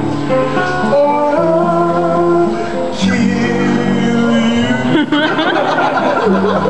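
Men singing a Samoan song together in harmony to an acoustic guitar. About five seconds in, the held notes break up and laughter mixes in.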